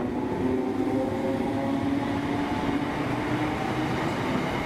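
ScotRail Class 320 electric multiple unit pulling away from the platform: a steady whine of several held tones from its traction motors over the rumble of its wheels on the rails.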